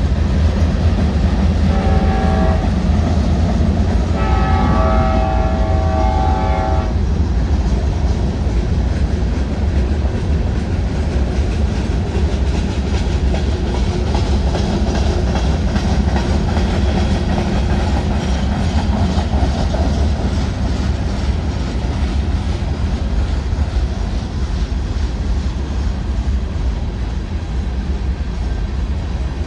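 Diesel freight locomotive horn blowing a short blast about two seconds in, then a longer one from about four to seven seconds. Under it is the steady low rumble of a passing Union Pacific manifest freight train: locomotive diesels and wheels on the rails.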